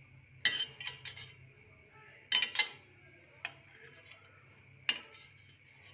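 Metal kitchen utensil clinking against a cooking pot: several separate sharp clinks, the loudest about two and a half seconds in.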